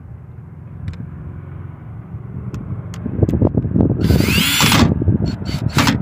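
Cordless drill driving screws back into a Crosman 1077 air rifle's stock. It starts about three seconds in and runs in short bursts, with a high motor whine that rises and falls about four seconds in.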